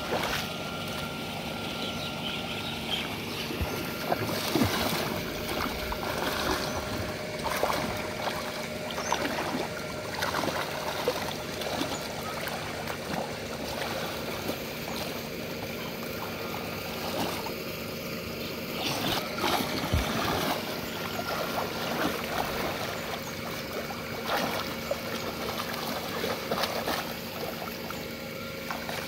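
Shallow muddy water sloshing and splashing as a person crawls and gropes through it by hand, with irregular splashes throughout.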